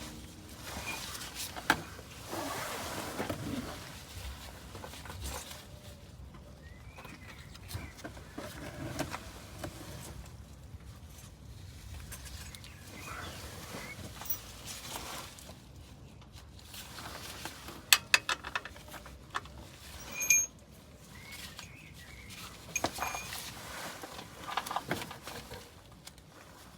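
Scattered metallic clicks, clinks and knocks of hands and tools working in an engine bay, with low handling noise and a quick cluster of sharp clicks a little past the middle.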